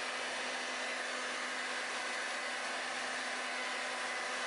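Electric hand mixer running steadily at an even speed, its wire beaters whipping egg white and icing sugar into royal icing.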